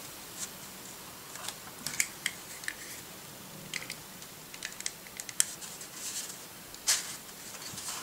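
Light clicks, taps and paper rustles from cardstock and a plastic craft tool being handled on a tabletop, with one sharper click about seven seconds in.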